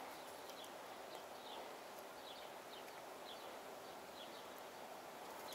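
Quiet outdoor background with faint, short bird chirps repeating through the middle.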